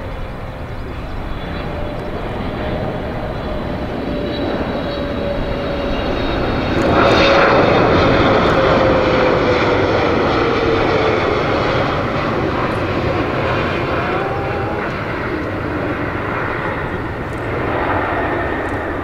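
Boeing 777-300ER's twin GE90-115B turbofans on final approach: a steady jet rumble with a whine that falls in pitch as the airliner passes close by, loudest about seven seconds in. The sound then eases as it touches down on the runway.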